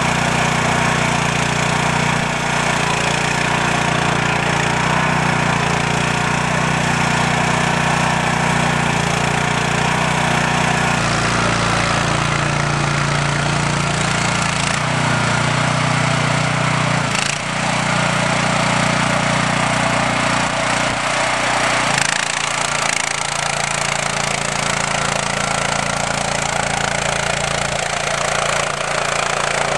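Small petrol engine of a compact 4x4 mini excavator running steadily with a lawn-mower-like drone. Its pitch and level shift a few times, about 11, 17 and 22 seconds in.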